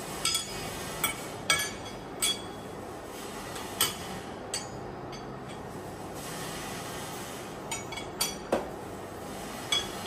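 Metal clinks and taps of hand tools and parts knocking against a lathe's steady rest and carriage while the setup is adjusted: about ten sharp, ringing clinks at uneven intervals over a steady background hum.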